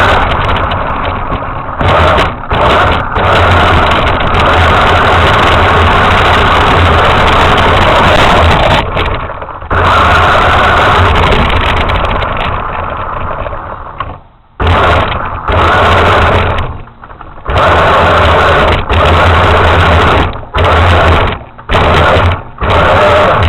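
Motor of a radio-controlled truck running under throttle, held on for long stretches at first. In the second half it comes in short full-throttle bursts of about a second each, cut off in between.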